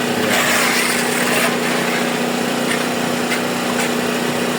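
Generator engine running steadily with a constant hum. A brighter hiss rides over it for the first second and a half.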